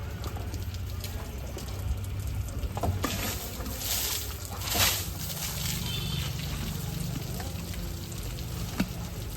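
Water pouring and splashing as an elephant bathes itself, with hissing bursts of spray about three and five seconds in, over a steady low hum.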